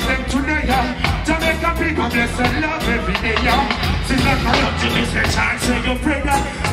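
Live reggae band playing loud through a festival PA, with a steady bass line and drum beat, and a male vocalist singing over it.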